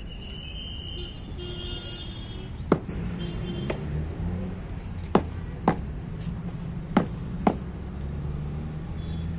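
Military boots striking paving in about six sharp footfalls, roughly in pairs half a second apart, as a slow ceremonial march step. Steady traffic hum from the street runs underneath.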